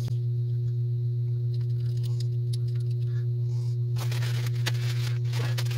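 Steady low electrical hum with a fainter higher tone above it, with a few faint clicks and a brief rustle of handling about four seconds in.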